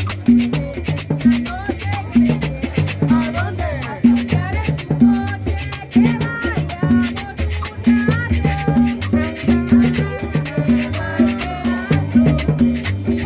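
Upbeat Latin dance music in a salsa style, with a steady bass line, shaker-like percussion and a melody above it.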